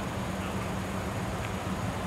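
Steady low rumble of an idling fire engine's diesel engine, with constant background hiss.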